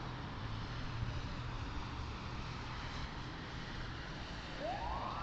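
Steady road and engine noise of a car driving in traffic, heard from a dashcam inside the cabin. Near the end a single whine rises steeply in pitch and then levels off.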